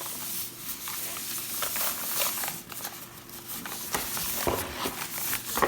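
Plastic protective bag rustling and crinkling as a mechanical keyboard is unwrapped and handled, in irregular crackly bursts.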